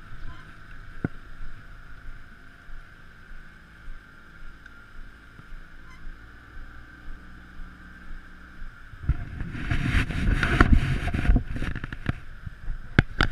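Open-air noise on a fishing boat, with wind buffeting the microphone. A strong gust comes in about nine seconds in and rumbles loudly for a few seconds, with a few sharp knocks near the end.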